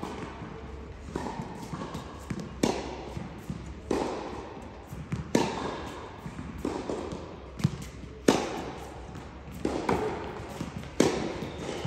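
Tennis balls being struck by racket strings in a practice rally, mixed with ball bounces on the court. There is a sharp hit about every second or so, each ringing on briefly in a large indoor hall.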